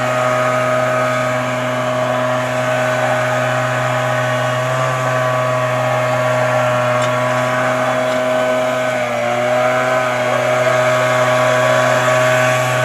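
Blower running steadily as it blows dust out of a combine harvester, with a short dip in engine speed about nine seconds in.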